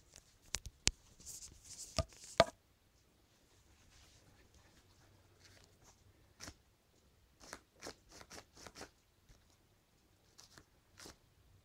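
Handling a paper, cardboard and duct-tape replica lever-action shotgun. Sharp clicks and knocks of the cardboard parts come in the first two and a half seconds, with a short rustle among them, the loudest a knock about two and a half seconds in. Softer, quicker taps follow about six to nine seconds in and twice more near the end.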